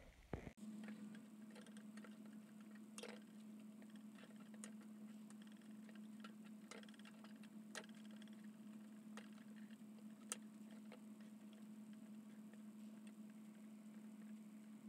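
Zip ties being snipped with a small cutter on a wire paper towel holder: a series of faint sharp clicks, roughly a second apart, over a steady low hum.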